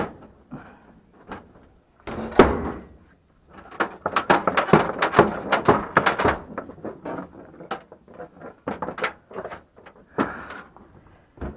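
Scrap pieces being handled and shifted into place, with knocking and clattering. A dense run of knocks lasts from about 2 to 7 seconds in, with single knocks before and after it.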